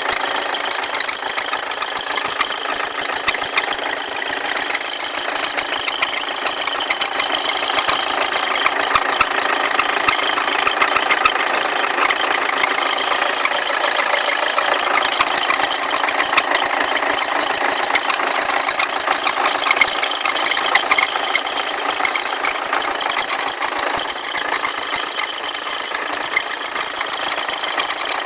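Peugeot 406 2.0 HDi 110 four-cylinder turbodiesel running steadily with the rapid clatter of a diesel. Over it an abnormal high-pitched squeal holds steady throughout.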